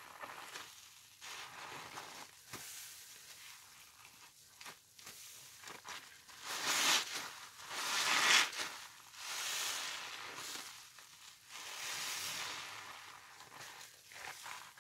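Wet, sudsy sponges soaked in pine cleaner being squeezed over and over, the suds giving a fizzing crackle in repeated swells every second or two, loudest around the middle.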